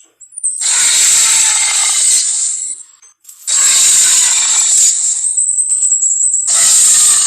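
Three long, loud movie-monster roars, the sound effects of King Kong or the Tyrannosaurus rex, each lasting about a second and a half with short pauses between; the last is cut off near the end.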